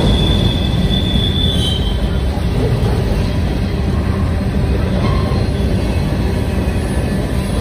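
Union Pacific freight train's covered hopper and tank cars rolling past close by: a steady, loud rumble of steel wheels on rail. A thin, high wheel squeal rings over it for the first two seconds, then stops.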